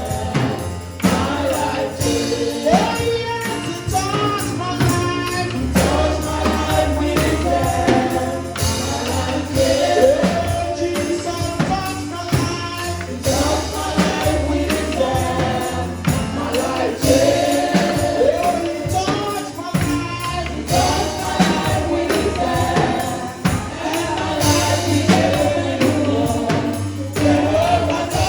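Gospel choir singing live over a band, with tambourine and a steady beat.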